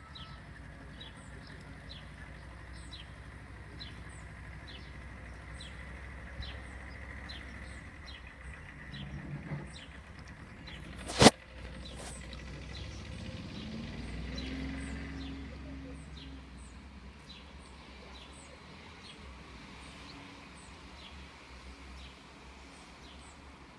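Outdoor ambience during a thunderstorm: a short high chirp repeats a little under twice a second over a steady low hum. About eleven seconds in comes one sharp, very loud crack, and then a low rumble swells and fades over a few seconds.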